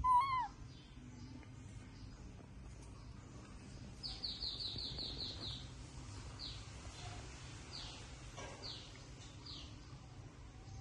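Baby monkey giving one short, wavering whimpering call right at the start, the loudest sound. About four seconds in, a small bird gives a quick run of about eight high falling chirps, then single falling chirps roughly once a second.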